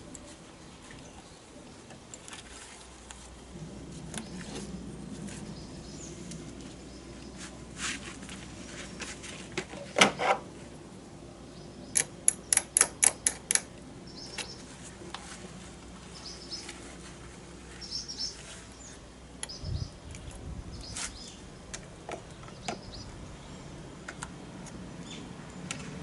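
Scattered sharp clicks and knocks, with a run of six crisp clicks about four a second midway and a low thud a little later.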